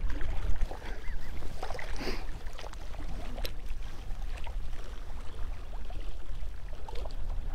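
Wind buffeting the microphone with a steady low rumble, over choppy lake water lapping against the shoreline rocks.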